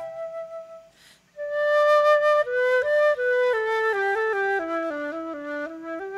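Solo concert flute playing a melody. A held note ends about a second in, followed by a short breath, then a phrase of notes that mostly step downward.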